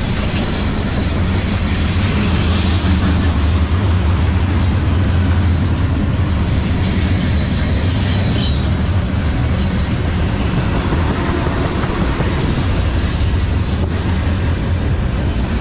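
Freight cars rolling past close by: a steady rumble of steel wheels on rail, with a higher hiss that swells and fades a few times.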